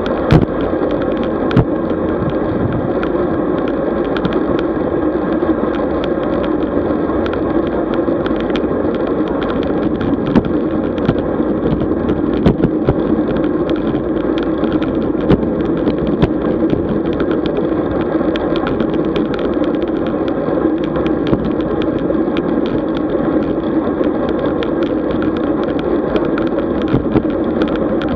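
Road bike in motion: a steady rumble of tyres and wind, broken by frequent sharp knocks and rattles as the bike runs over the road surface.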